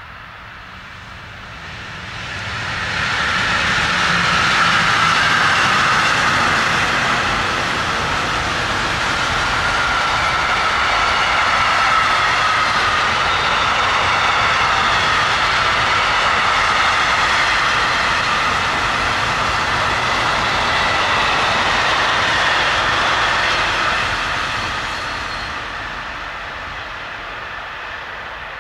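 Electric locomotive hauling a long intermodal freight train of trailers and containers past: steady rolling noise of the wagons on the rails with a faint high ringing tone over it. It swells a few seconds in and fades near the end as the last wagons go by.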